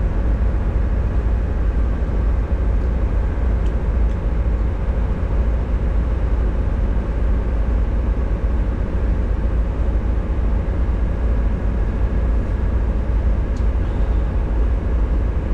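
Steady low engine rumble that does not change.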